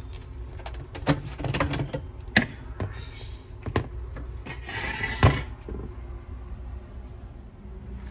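Dishwasher parts being handled: a series of sharp knocks and clatters with two brief scraping rustles, the loudest knock just after five seconds in.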